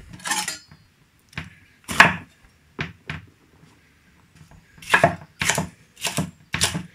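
Kitchen knife cutting a red pepper on a wooden chopping board: a few separate knocks of the blade on the board, then a quick run of chops, about three a second, near the end as the pepper is sliced into strips.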